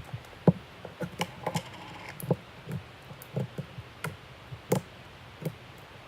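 Slime being squeezed and poked by hand, giving off irregular small clicks and wet pops, about two or three a second.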